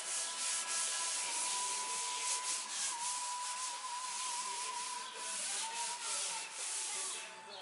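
A Brillo steel-wool soap pad scrubbed back and forth over a rusty steel car body panel wet with vinegar water. It makes a steady scratchy rubbing in quick repeated strokes, easing off near the end.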